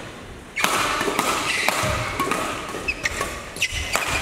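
Badminton rally: rackets striking the shuttlecock in several sharp hits, with players' feet thudding on the court floor, starting about half a second in.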